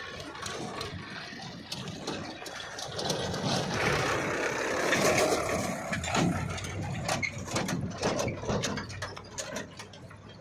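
Machinery clanking and rattling, with a rushing noise that swells to its loudest about halfway through, followed by many sharp knocks and clicks.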